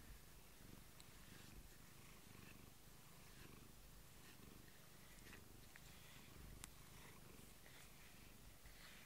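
Domestic tabby cat purring faintly and steadily while its head and cheeks are brushed with a soft plastic bristle brush, with light brushing strokes and a tiny click or two.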